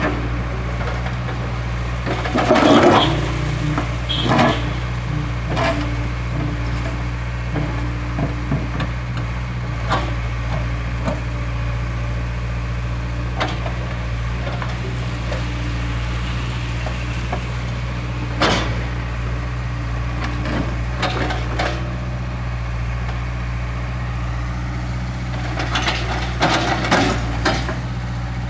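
Hydraulic excavator's diesel engine running steadily, with scattered knocks and clanks, the loudest about three seconds in, one near the middle and a cluster near the end.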